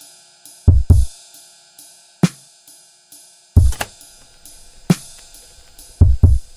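Background music with a drum-machine beat: heavy kick-drum thumps, occasional sharp snare-like hits, and steady hi-hat ticks about two to three times a second over a held synth chord.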